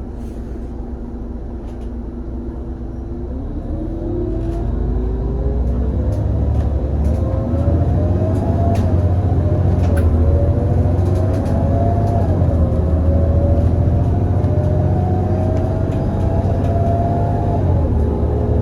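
Irisbus Citelis 18 GNC articulated bus with a CNG IVECO Cursor 8 six-cylinder twin-turbo engine and ZF Ecomat 6-speed automatic, accelerating: the engine and drivetrain note climbs in pitch and drops back at each upshift, about four times, while the rumble grows louder over the first few seconds.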